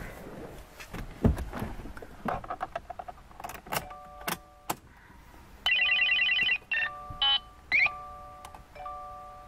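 2016 Subaru WRX's dashboard warning chimes: a repeating key-in-ignition chime, then a louder rapid beeping for about a second and a few short beeps as the ignition is switched on. Clicks of the key and interior handling come before the chimes.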